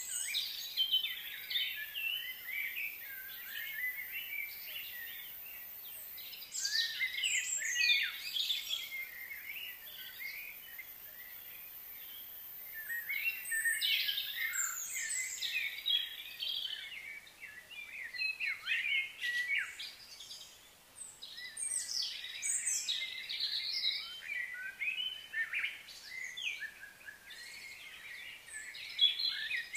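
Small birds chirping and singing in bursts of quick, overlapping calls, with short lulls between the bursts.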